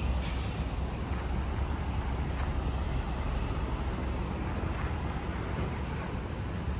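City street traffic noise: a steady low drone of passing vehicles.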